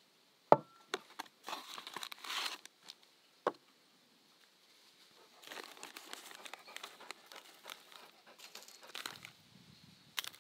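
A ceramic bowl is set down on a wooden tabletop with a sharp clack and a brief ring about half a second in. Then a clear plastic zip-lock bag crinkles in stretches as it is handled and opened, with a knock partway through.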